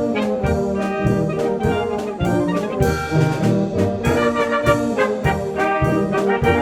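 Austrian brass band playing a Bohemian polka, trumpets and trombones over a steady beat in the low brass.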